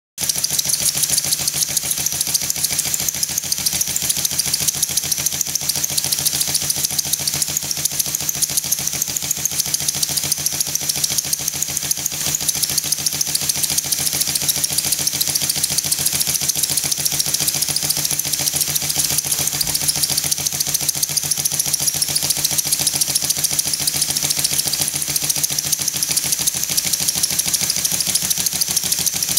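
Stuart S50 single-cylinder model mill engine running steadily on compressed air at about 5 psi: a fast, even beat of exhaust pulses over a hiss of escaping air.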